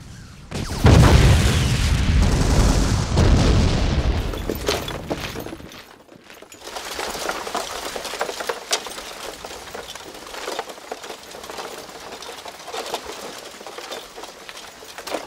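Battle sounds of explosions and gunfire: a heavy blast about a second in rumbles for several seconds and dies away near the sixth second. It is followed by quieter, scattered crackling shots.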